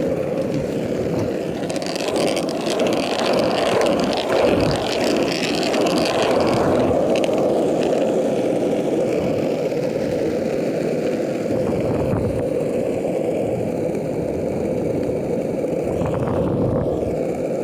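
Longboard wheels rolling fast on asphalt: a loud, steady rumble, with a brighter hiss mixed in between about two and seven seconds in.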